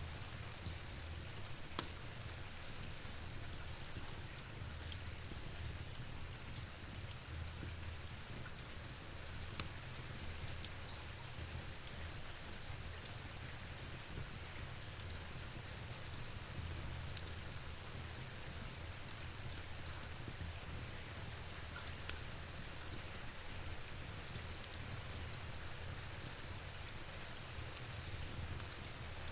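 Steady rainfall, an even hiss with a low rumble beneath, dotted with scattered small sharp ticks.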